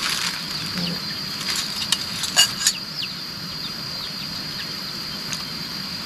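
A steady high-pitched insect drone, with a soft sizzle of cooking beneath it and a few sharp clicks and clinks of utensils between about one and a half and three seconds in, as beef goes into the curry pot.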